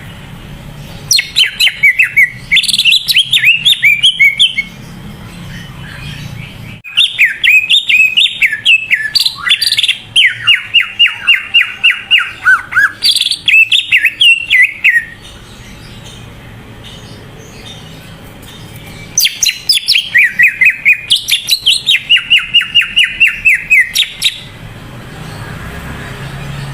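Cucak ijo (green leafbird) singing: three long runs of rapid, varied chirping notes, the middle one the longest, with short pauses between.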